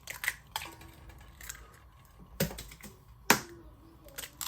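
Eggs being cracked against the rim of a bowl: a series of sharp taps and clicks, with two harder knocks about two and a half and three and a half seconds in.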